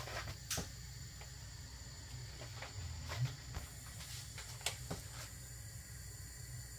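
Pot of soup simmering on a gas stove: a faint steady hiss over a low hum, with a few soft scattered ticks in the first five seconds.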